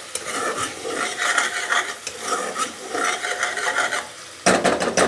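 Chopped onions sizzling in oil in an aluminium pot while a metal spoon stirs them in repeated scraping strokes, sautéing them until soft. Near the end the spoon gives a few sharp knocks against the pot.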